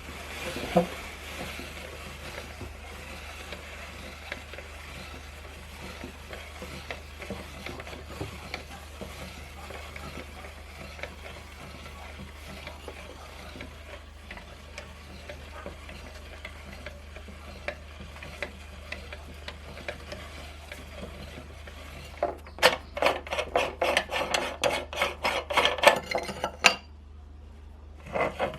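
Meat grinder crushing Oreo cookies: a steady gritty rasping with small crackles, then, about 22 seconds in, a loud rapid run of crunching clicks for about four seconds that stops abruptly.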